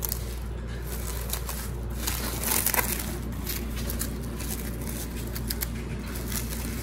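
Plastic cling wrap crinkling and crackling as it is folded and rolled around a log of soft butter, with a louder patch of crinkling about two and a half seconds in.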